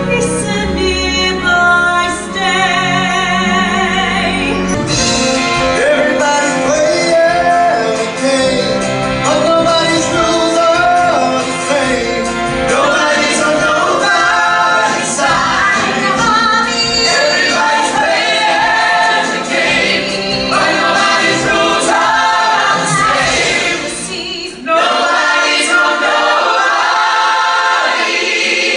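Live musical-theatre singing with instrumental accompaniment: a wavering high held note about two to four seconds in, then the cast singing together as an ensemble.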